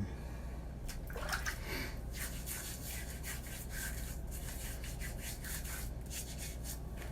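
Pure badger shaving brush swirling wet lather: a steady run of quick, bristly scrubbing strokes.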